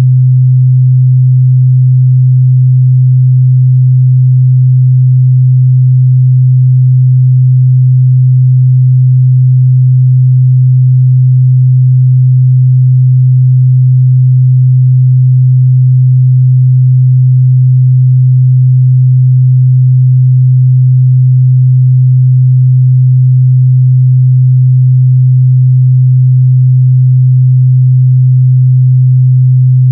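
Continuous 128 Hz sine-wave test tone, a single steady low hum held at a constant loud level.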